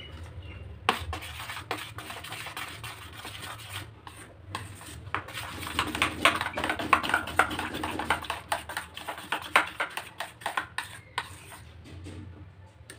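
Steel spoon beating thick malpua batter in a stainless steel bowl: rapid clicks and scrapes of the spoon against the metal with the wet slap of the batter, starting about a second in and busiest in the middle.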